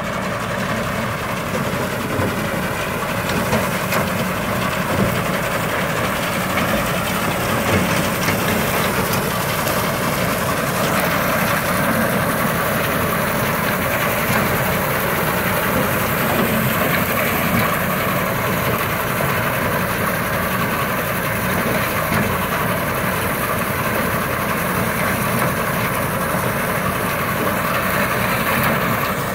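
Tractor engine running steadily, driving a Yapel TDG 180 reaper-binder through its power take-off, with the machine's mechanism working.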